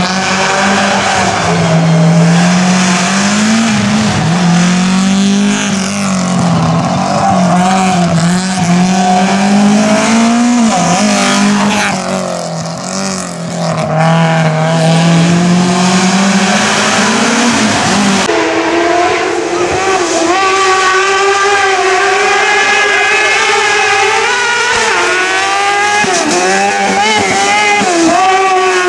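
Race car engines at full throttle on a hillclimb course. A hatchback rally car's engine rises and falls in pitch through repeated gear changes. About 18 seconds in, it gives way abruptly to a second, higher-pitched engine from a small open single-seater buggy, also rising and falling as it is driven hard.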